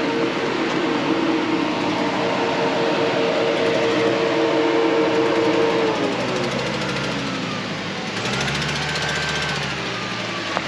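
Hummer H3 crawling slowly over a rocky dirt trail, its engine and drivetrain running with a steady whine that drops in pitch about six seconds in. A higher whine rises briefly near the end.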